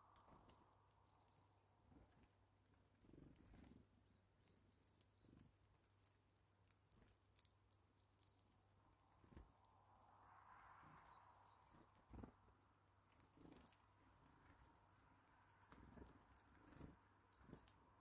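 Faint, scattered taps and clicks of Eurasian bullfinches pecking and cracking sunflower seeds on a feeding tray, with a few short runs of three or four high chirps from a small bird.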